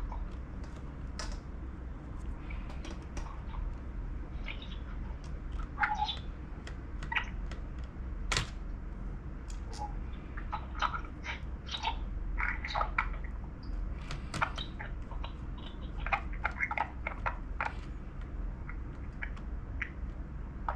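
Small screwdriver clicks and taps as screws are driven back into an Asus laptop's case, irregular throughout, with a few short squeaks among them.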